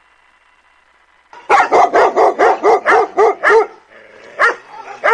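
Dog barking: after a faint hum, a fast run of about nine barks at roughly four a second begins about a second and a half in, then a single bark near the end.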